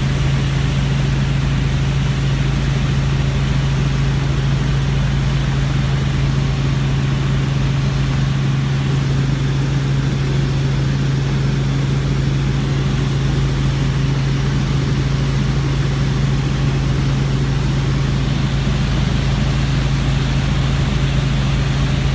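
Helicopter in flight heard from inside the cabin: a loud, steady drone of rotor and engine with a strong low hum.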